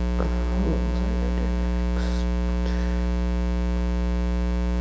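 Steady electrical mains hum with many evenly spaced overtones, the loudest thing throughout. Over it come a brief low murmur of voice in the first second and a couple of faint handling clicks about two seconds in.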